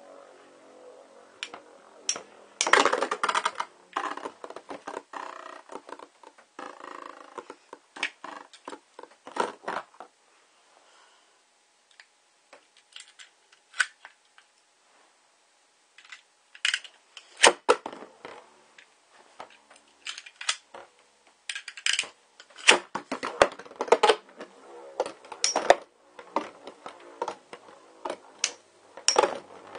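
Two metal-wheeled Beyblade tops, Galaxy Pegasis and Rock Giraffe, spinning and clashing in a plastic stadium: rapid, irregular clinks and rattles as they strike each other and the stadium walls. They come in two flurries, with a quiet spell of several seconds between them.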